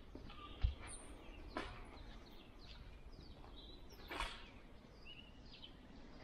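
Quiet open-air ambience with faint, scattered bird chirps. A dull thump comes about half a second in, and a couple of gritty scuffs later, like footsteps on a concrete floor strewn with debris.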